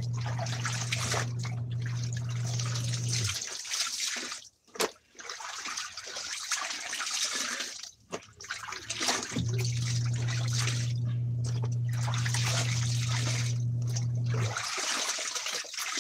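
Water splashing and dripping as clothes are scrubbed and wrung out by hand in a plastic basin. A steady electric motor hum cuts off about three seconds in, starts again about nine seconds in and runs for about five seconds.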